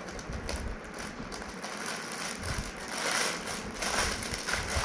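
A plastic courier mailer bag being snipped with scissors and then pulled open by hand, the thin plastic crinkling and rustling, loudest about three seconds in.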